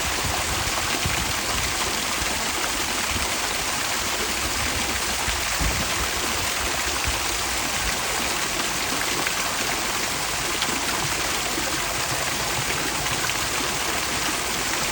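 Fountain water splashing steadily, a constant rushing hiss with no break.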